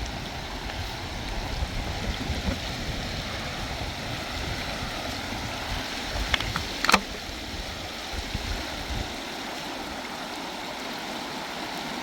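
River water rushing steadily, with a low rumble underneath that stops about nine seconds in and a single sharp click about seven seconds in.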